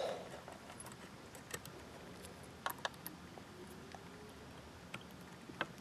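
Faint, scattered clicks and light scrapes of a small screwdriver and screw against a steel drive-bay bracket as a mounting screw is driven into a hard drive.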